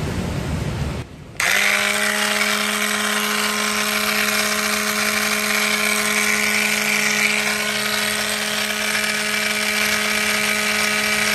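Homemade cordless angle grinder, driven by a 795 DC motor on a power-tool battery, switched on about a second and a half in after some handling noise. It spins up quickly and runs at a steady whine with no load until it cuts off at the end. This is a successful test run of the conversion.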